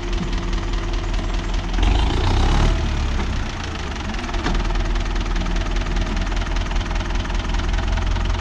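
Renault 651 tractor's diesel engine running steadily, with a louder rush of noise for about a second around two seconds in.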